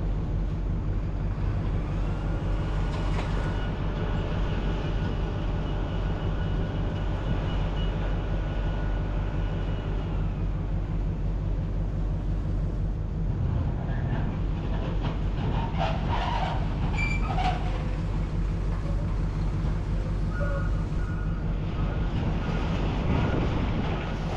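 A large engine runs steadily as a low drone. A higher whine rises and then falls from about two to ten seconds in, and a cluster of metallic clicks and clanks follows near the middle.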